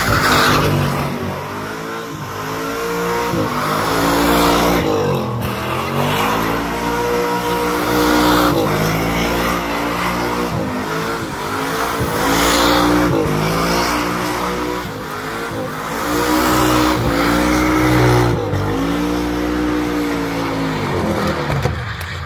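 Car doing a burnout: the engine is revved up and let fall back again and again, about every two seconds, over the hiss and squeal of the spinning rear tyres. The revving eases off near the end.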